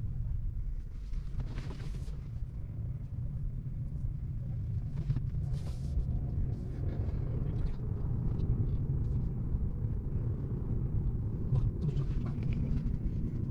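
Steady low road and engine rumble heard inside a moving Audi car's cabin, with a few faint brief ticks.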